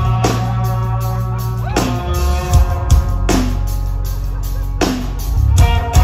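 Live rock band playing loudly: electric guitars over a drum kit keeping a steady beat with regular cymbal and drum hits.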